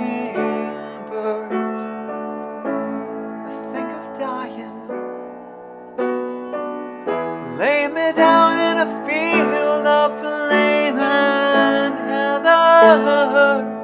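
A man singing a slow ballad over his own piano chords. The voice drops out for a moment around the middle while the piano plays on, then comes back strongly.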